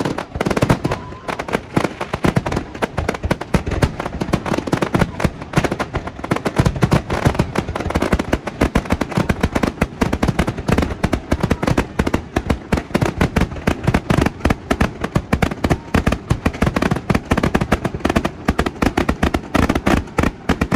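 Fireworks display in a dense, unbroken barrage: many shell bursts a second, a rapid string of bangs and crackling.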